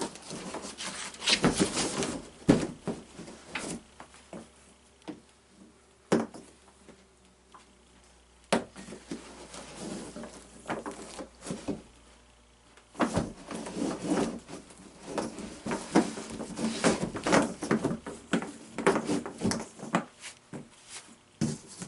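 A new sawmill band blade being handled: irregular metallic clicks, knocks and rustling. The sounds come in a busy spell in the first few seconds and again for several seconds from about halfway on.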